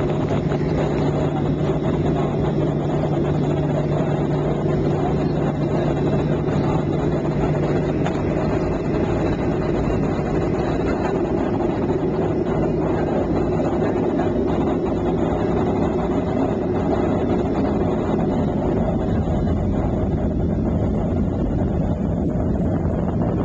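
Boeing jet airliner taxiing, heard from inside the cabin: the steady rumble and hiss of the jet engines at low taxi power, with faint high whines. A low hum fades out about a third of the way through.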